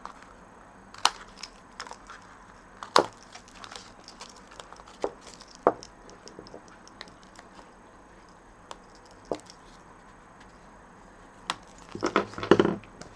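Card stock being handled and trimmed on a craft table: scattered light taps and clicks, then a louder burst of rustling and clicking near the end.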